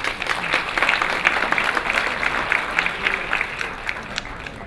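Audience applauding, a dense patter of many hands clapping that thins to scattered claps near the end.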